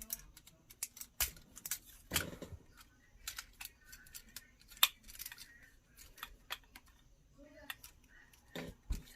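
Plastic parts of a Transformers Studio Series Ratchet action figure clicking and snapping as it is handled and transformed: many small irregular clicks, with a couple of heavier knocks of the figure being handled, about two seconds in and near the end.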